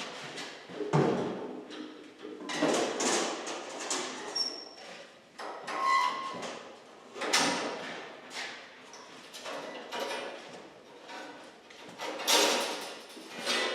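Irregular metal clunks, rattles and scrapes as the band blade is changed on a Wood-Mizer LT50 band sawmill, about one every second or two, with a brief squeak in the middle.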